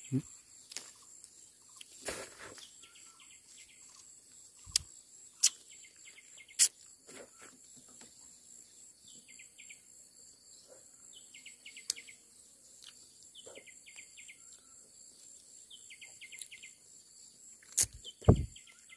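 Forest insects droning steadily and high, with short chirping trills repeating every second or two. A few sharp knocks and rustles from pushing through brush cut in, the loudest a pair near the end.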